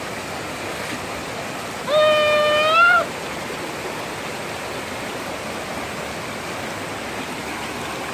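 Steady rush of a small waterfall spilling over rock ledges into a shallow, rocky creek. About two seconds in, a person gives one high-pitched held cry of about a second, rising at the end.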